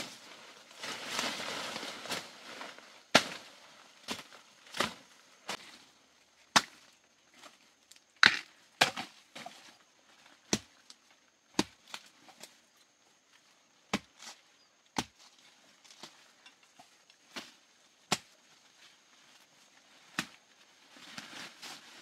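Wild bamboo shoots being snapped off by hand: a string of sharp woody snaps, about fifteen at irregular intervals, after a brief rustle of undergrowth at the start.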